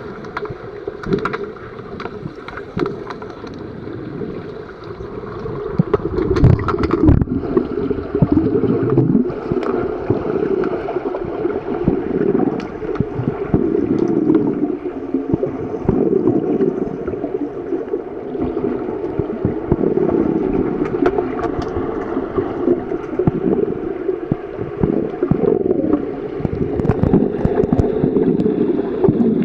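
Muffled underwater sound picked up by a camera submerged in a swimming pool: a continuous churning of water and bubbles stirred by finned swimmers, with many scattered small clicks and knocks. It gets louder about six seconds in.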